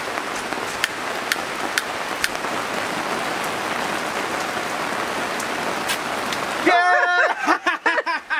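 Steady rain hiss with a few sharp, separate drip clicks. About two-thirds of the way in it cuts off abruptly to a person's voice.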